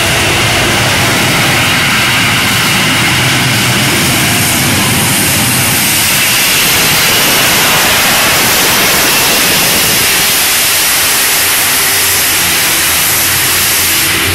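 Jetpack's thrust running at full power: a loud, steady rushing roar with no rise or fall.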